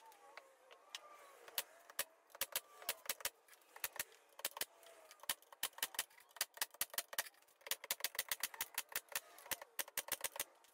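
Pneumatic nail gun firing shot after shot as it drives nails through a plywood cabinet top, sharp cracks coming several a second in quick runs.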